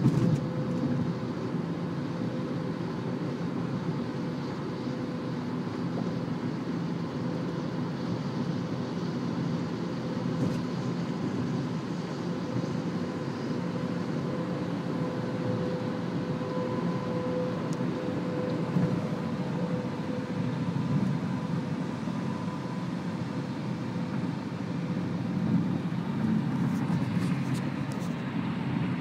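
Steady road and engine noise of a car moving at highway speed, heard from inside the cabin, with a constant hum over it.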